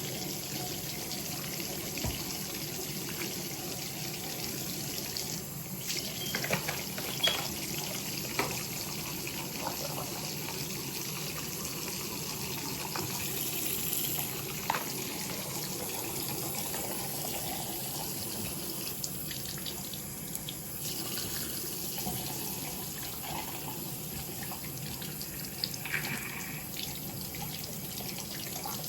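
Bathroom sink tap running steadily into the basin, with a few brief knocks and clatters.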